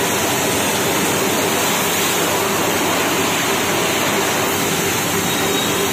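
High-pressure washer jet spraying water onto a motorcycle, a loud, steady hiss of water that does not let up.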